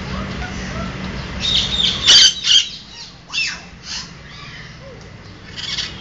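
Blue-naped parrots squawking: a burst of loud, harsh calls about two seconds in, then shorter squawks spaced out over the following few seconds.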